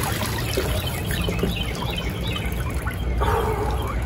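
Icy water splashing and streaming off a man's head and face as he comes up out of a head-dunk in a plastic tub ice bath. Birds chirp in the background.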